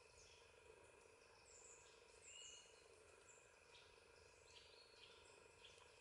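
Near silence: a faint steady hum with a few short, high, falling chirps, the loudest about two and a half seconds in.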